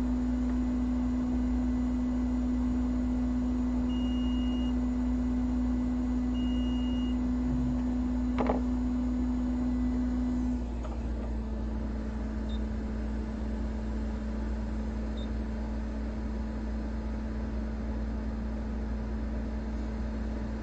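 Steady electric fan or motor hum from repair-bench equipment, with one clear tone that steps slightly down in pitch about ten seconds in. A single click comes near the middle, and two faint short high beeps come early on.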